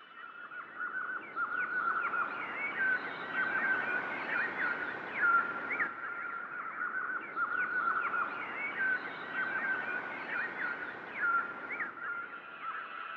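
A dense chorus of small birds chirping and twittering: many quick chirps over a thin, steady trill.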